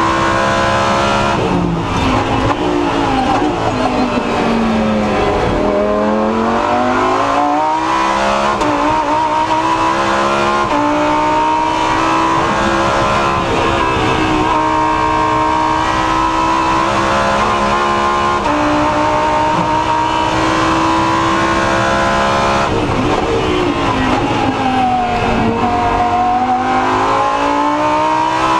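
Lamborghini Huracán Super Trofeo's V10 race engine, heard from inside the cockpit at racing speed. Its revs fall from a couple of seconds in, then climb with short breaks at the gearchanges, hold high through the middle, and fall and climb again near the end.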